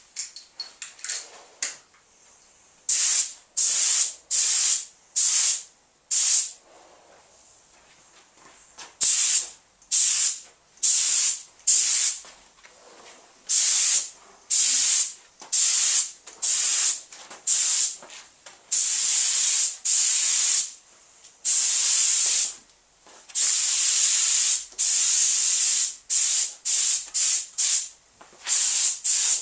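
Small compressed-air paint spray gun hissing in repeated bursts, each about half a second to two seconds long, as a light first coat of paint is sprayed on. A few short puffs come first, then a pause of a few seconds, then a long run of bursts.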